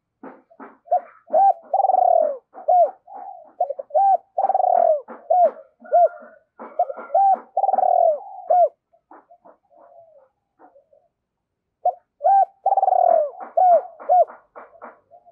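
Spotted dove cooing: repeated phrases of low, arched coos. There is a pause of about three seconds after the middle, then it starts again.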